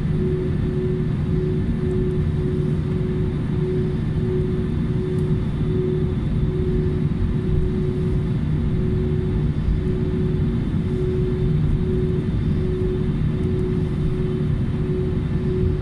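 Airliner cabin noise while taxiing: the jet engines' steady low rumble heard from a window seat, with a humming tone that pulses about twice a second.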